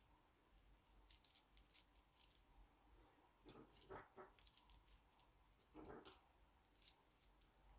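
Faint crinkling of cellophane-wrapped lollipops being handled, with a few soft knocks about three and a half to four seconds in and again about six seconds in as they are moved about and set down.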